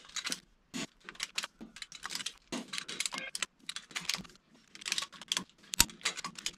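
Hand ratchet clicking in quick back-and-forth strokes as it runs down steel bolts on an axle hub cap. There is one sharper metal clack near the end.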